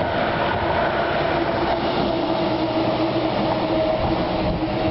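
Whelen 4008 electronic outdoor warning siren sounding its wail tone: a held tone with overtones over a steady rushing background.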